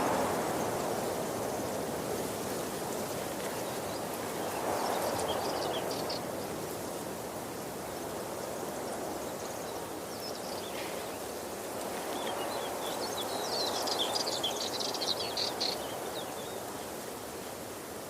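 Waterfall water rushing steadily, swelling and easing. Birds chirp over it in two short bouts, about five seconds in and again near the end.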